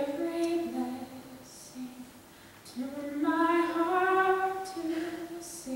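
A young woman singing solo and unaccompanied, slow held notes, with a short break about two seconds in before a long sustained phrase.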